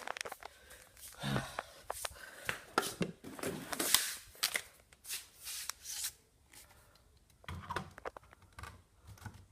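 Irregular rustling, clicks and scuffs of handling and moving about, with a few soft knocks like footsteps; no alarm sounding.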